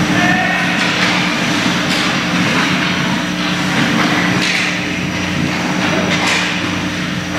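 Ice hockey play: skates scraping and carving on the ice, with sticks on the puck, over a steady low hum in the rink. There are sharper skate scrapes about four and a half and six seconds in.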